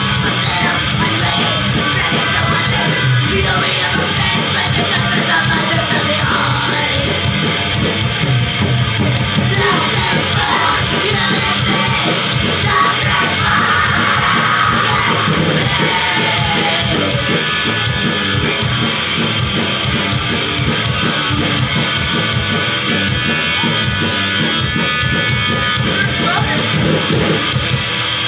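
Punk band playing live: loud distorted electric guitars over drums, with yelled vocals at times.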